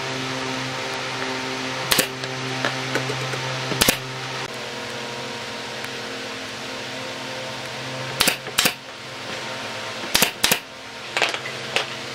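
Wooden pallet slats knocking sharply against a wooden lounger frame as they are laid in place by hand: two single knocks, then several in quick pairs in the second half, over a steady hum.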